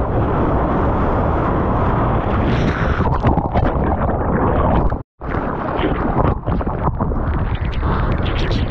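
Rushing, splashing sea water and wind buffeting a surfer's action camera as the surfer paddles through a breaking wave and goes under it, with a sharp burst of splashes around the middle. The sound drops out abruptly for a split second about five seconds in.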